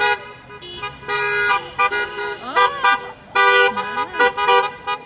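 Car horns honking in a run of about nine toots, mostly short, with a couple lasting around half a second.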